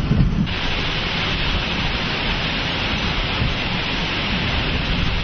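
Hurricane-force wind and driving rain: a steady rushing hiss. The music bed before it drops out about half a second in.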